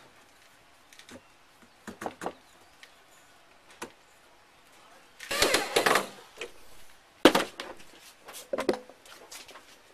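Intermittent clicks and knocks of hands handling parts, with a scraping rustle about five seconds in and one sharp knock a little after seven seconds. A pale plastic sleeve is being fitted over the hub of a resin-coated steering wheel.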